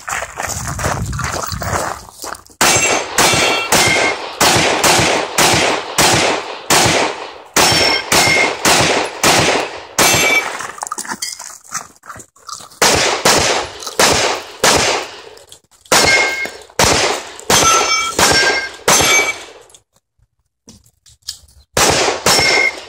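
Strings of rapid pistol shots, several a second, many followed by a short metallic ping as steel targets ring from hits. The firing pauses briefly twice, about halfway through and again near the end, then resumes.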